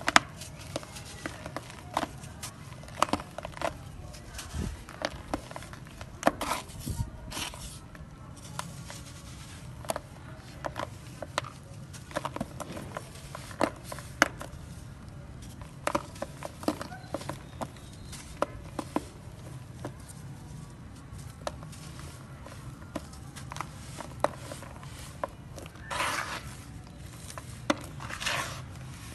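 Dry grey sand-cement lumps crushed and crumbled by hand: scattered sharp crackles and crunches, with loose sand sifting and scraping between them. There is a longer rush of sifting sand near the end.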